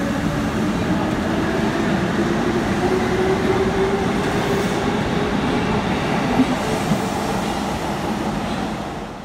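Keikyu red electric commuter train pulling out along the platform: wheel and traction-motor rumble with a motor hum that rises slowly in pitch as it gathers speed, a couple of wheel clacks over the rail joints, then fading as the train draws away.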